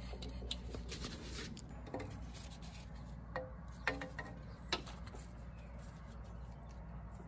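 Light clicks, taps and rubbing from gloved hands handling and routing a rear ABS wheel-speed sensor cable and its clips, with a few sharper clicks in the middle. A low steady hum runs underneath.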